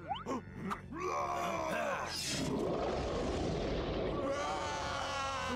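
A group of cartoon shadow creatures groaning and yelling together as one mass of voices. It builds from about a second in and is held to the end.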